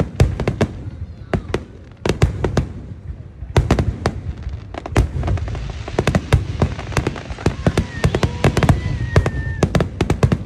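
Aerial fireworks bursting: a rapid, irregular series of sharp bangs and crackles, often in tight clusters, over a steady low rumble.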